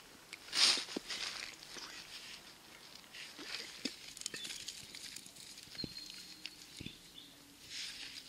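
Thin dry twigs being laid over small burning cotton-ball tinder, with light clicks and snaps of sticks. A short hissing scrape comes about a second in and another near the end.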